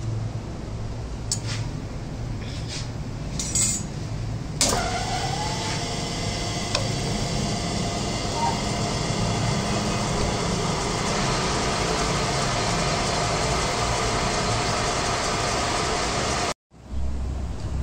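Metal lathe switched on about four and a half seconds in: a click, then a short rising whine as the chuck and the machined bearing cup spin up, settling into a steady running hum. A few light metal clicks come before it starts, and the sound cuts off suddenly near the end.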